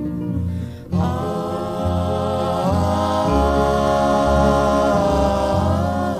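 Music between sung verses. One long held melody note enters about a second in and steps up in pitch a little under two seconds later, over a changing low accompaniment.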